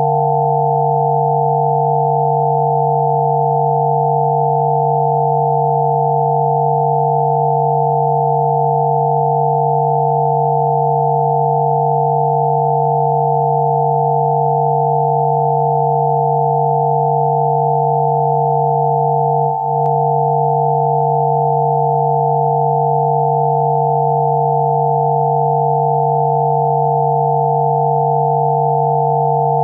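Steady electronic sine tones of a 'healing frequency' track: a low hum near 140 Hz layered with several higher pure tones around 500 to 900 Hz, held unchanged. About twenty seconds in there is a brief dip in level with a faint click.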